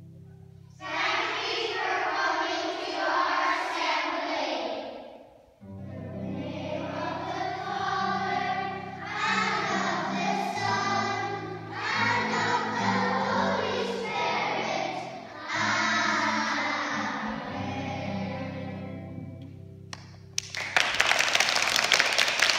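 A class of young primary-school children singing a religious song together in phrases, over an instrumental accompaniment of steady sustained low notes. Clapping breaks out about 20 seconds in and carries on to the end.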